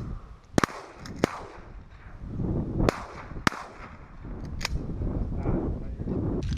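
About five shotgun shots from several hunters in quick, uneven succession: two close together about half a second in, two more around the middle, and a last one shortly after. Strong wind buffets the microphone throughout with a low rumble.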